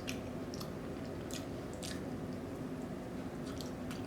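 Chewing with a few short, sharp wet mouth clicks scattered through, over a low steady hum.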